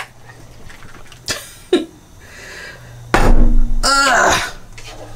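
A single loud burst of a person's voice and breath, about three seconds in and lasting about a second, after a click at the start and a few faint short sounds.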